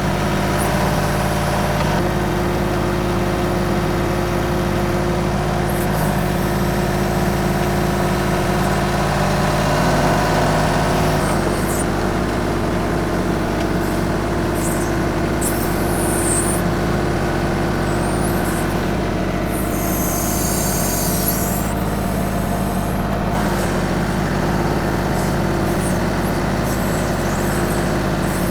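TYM 2515H compact tractor's diesel engine running steadily at a constant speed while working the BH150 backhoe. A few short high hisses or squeals cut in over it, the longest lasting a few seconds about two-thirds of the way in.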